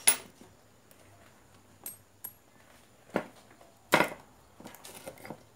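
Scattered clicks and light knocks of a car audio amplifier's circuit board and small metal parts being handled, two of them with a brief high metallic ring about two seconds in; the loudest knock comes about four seconds in.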